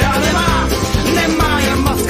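Loud rock music with singing, guitar and a steady beat.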